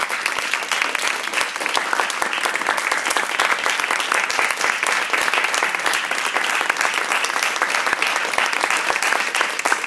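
Audience applauding: a dense, steady round of clapping from many hands.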